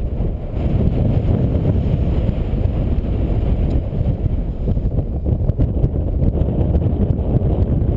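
Strong wind buffeting the microphone: a loud, gusting low rumble throughout, with no other clear sound.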